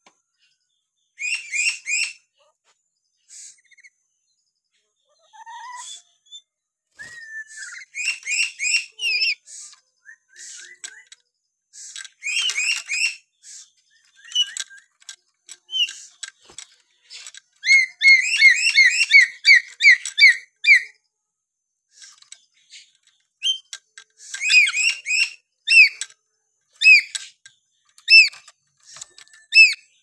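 Black-capped lory (nuri paltem) whistling: bursts of quick, high whistled notes repeated over and over with short pauses between, the longest rapid run about two-thirds of the way through, and a few single lower gliding whistles among them.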